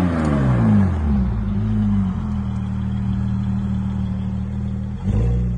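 Porsche 718 Cayman GT4's flat-six through a JCR aftermarket exhaust: the revs fall away over the first couple of seconds, then the engine runs at a steady low rpm. A quick rev blip comes near the end.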